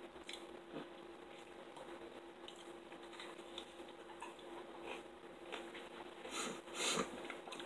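Quiet chewing and wet mouth sounds of someone eating, with scattered soft clicks and a couple of louder smacks near the end, over a faint steady hum.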